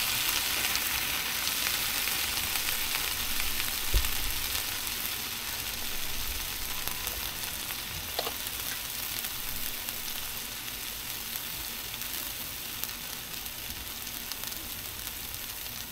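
Buttered bread frying on the hot flat-top of a Blackstone 17-inch griddle: a steady sizzle that eases slowly. A single dull knock about four seconds in.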